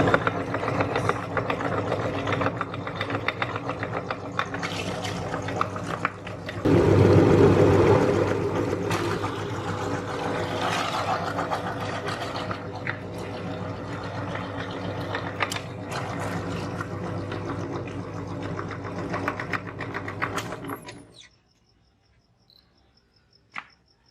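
Electric meat grinder's motor running steadily while it grinds beetroot, briefly louder a few seconds in, then switched off near the end.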